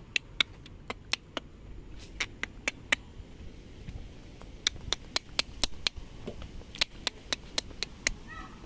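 Short runs of sharp clicks or taps, about four a second, with pauses between the runs.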